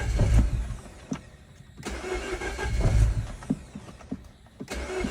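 2011 Mini Cooper S (R56) N18 1.6-litre turbo four being cranked on the starter in short attempts that don't catch, a symptom of its no-start fault. One crank ends about a second in, a second runs for nearly two seconds, and a third begins near the end.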